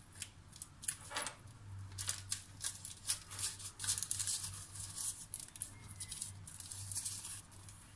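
Knife trimming the edge of a sponge cake sheet on parchment paper: a run of quick scraping, crinkling clicks as the blade cuts down against the paper, then rustling as the cut strip is pulled away. A faint low hum runs underneath.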